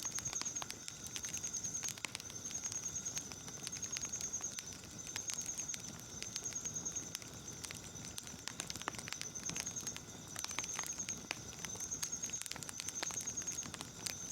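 Wood fire crackling with scattered sharp pops, over night insects chirping in high trills about a second long that repeat roughly every second and a half.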